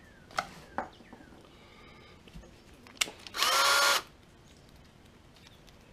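Cordless drill's motor run in one short burst of under a second, about three seconds in: a whine that rises as it spins up, then holds steady before stopping. A few light clicks come before it.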